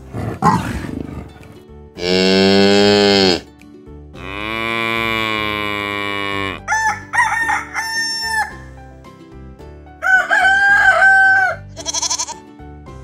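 A run of farm-animal calls: the tail of a lion's growl at the start, a cow mooing twice in long calls, a rooster crowing, and a goat's short bleat near the end.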